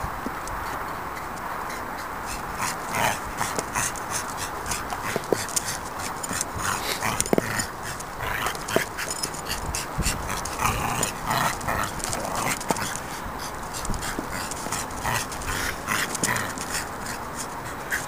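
A dog worrying at an old moped tyre with her head inside it: dog noises and breathing, with frequent sharp scuffs and clicks of paws and rubber on gritty tarmac.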